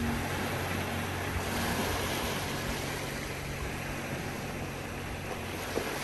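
Sea surf washing onto the shore: a steady rushing noise of waves.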